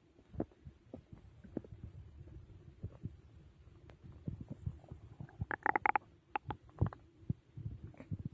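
Stomach growling from digestion after a big meal: a stream of short gurgles and low rumbles, with a brief run of higher, squeaky gurgles a little past the middle.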